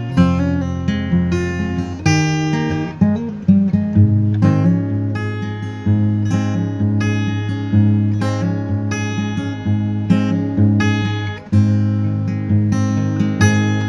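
Background music: acoustic guitar picking and strumming in a steady rhythm.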